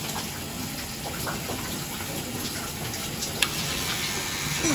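Tap water running steadily from a bathroom faucet into the sink basin, with one sharp click about three and a half seconds in.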